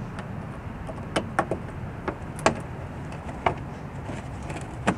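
Irregular sharp clicks and taps, about six, of a 2005 Toyota Camry's plastic front fender liner and retaining clip being pushed and fitted by hand.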